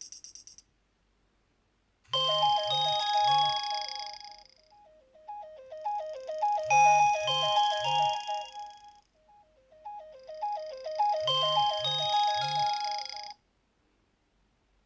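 Nokia 6230 ringtone playing from the phone: a short synthesized multi-note melody that plays three times with brief pauses between. The tail of the previous ringtone stops just after the start.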